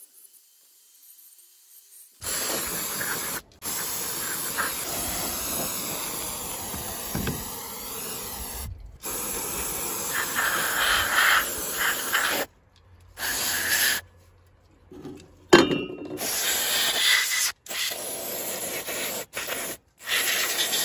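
Aerosol spray can with a straw nozzle hissing as it sprays onto a rusty steel bumper bracket. The hiss begins about two seconds in and runs in stretches that stop abruptly several times.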